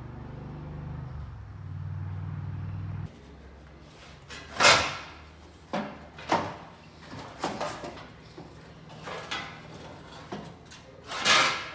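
A steady low hum that cuts off abruptly about three seconds in, followed by a series of about six loud, separate clanks and knocks, each ringing briefly, from hands-on work taking apart the Jeep.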